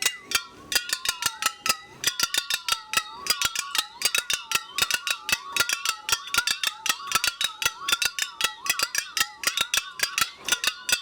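Rapid, steady strikes on ringing household metal objects played as percussion, several hits a second, with ringing tones that bend down and back up in pitch.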